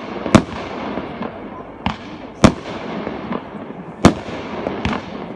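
Fireworks going off: about five sharp bangs, the loudest about two and a half seconds in, over a continuous crackle.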